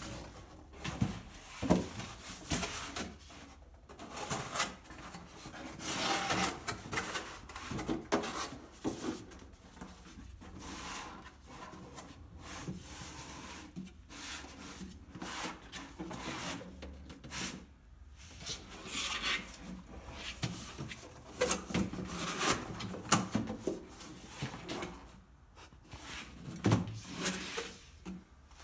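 Corrugated cardboard carton being handled and opened: irregular scraping and sliding of cardboard against cardboard as flaps are folded, with a few sharp knocks.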